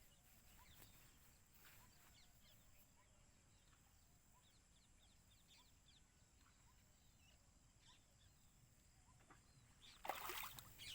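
Near silence: faint outdoor background with a few faint short chirps scattered through it, and a brief rustling noise near the end.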